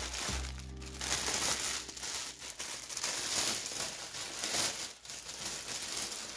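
Clear plastic packaging bag crinkling and rustling in the hands, in irregular surges, as it is handled and opened.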